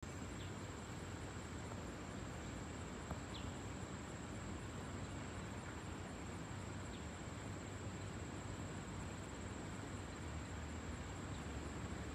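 Boeing 747-400 jet passing high overhead: a steady, distant low rumble. Over it runs a steady high insect trill, with a few short high chirps now and then.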